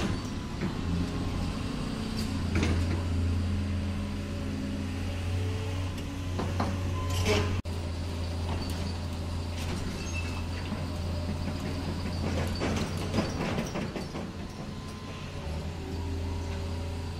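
Radio-controlled Huina model excavator working: a steady low motor hum with a whine that shifts as the arm and bucket move, and a few brief scrapes and rattles as soil is dug and dropped.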